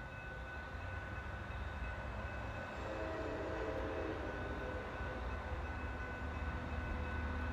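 GE P32AC-DM diesel locomotive approaching from a distance: a low engine rumble that slowly grows louder, with a distant horn sounding briefly about three seconds in.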